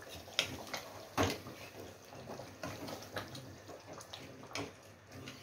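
Metal ladle stirring thick jackfruit curry in a stainless steel pot: wet, sloppy stirring of the gravy with a few sharp clinks and scrapes of the ladle against the pot, the loudest about a second in.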